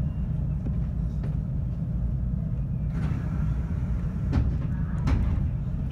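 Steady low rumble of a JR West 521 series electric train, heard from inside the car, with a few sharp clicks in the second half.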